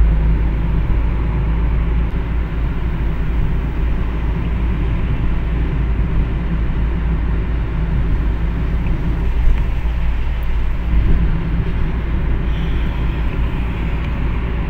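Steady road noise inside a moving car's cabin: a low engine and road rumble, with tyre hiss from a wet road.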